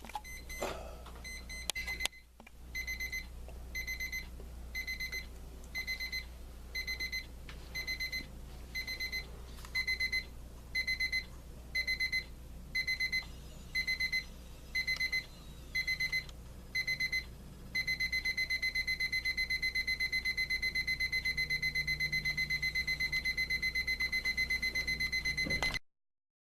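Ascending beep alarm of an Equity by La Crosse quartz analog alarm clock: high electronic beeps in short groups about once a second, growing louder. About two-thirds of the way through they become continuous rapid beeping, which cuts off suddenly near the end.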